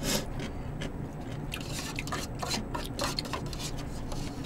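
A spoon clicking and scraping against plastic soup containers and a small cup as soup is scooped, in a run of short, irregular light clicks.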